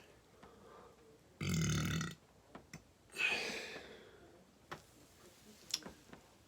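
A person's closed-mouth burp, one pitched belch of under a second about a second and a half in. About three seconds in comes a breathier, hissing sound that fades away.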